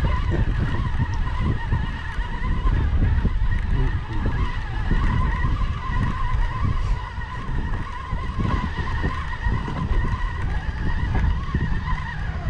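Spinning reel being cranked to bring in a hooked fish, its gears giving a steady wavering whine, over heavy wind rumble on the microphone.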